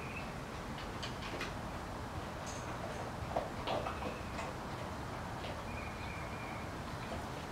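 Dog eating dry food: scattered irregular crunches and clicks over a steady low background noise, with a couple of short high chirps.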